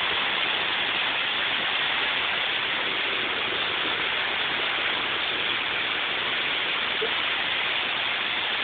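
Torrential rain pouring down in a severe thunderstorm, a steady, unbroken hiss of heavy rainfall.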